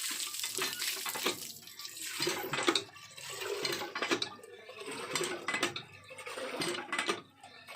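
Water splashing and sloshing in a metal pot or bowl, with irregular clinks and knocks of the vessel throughout.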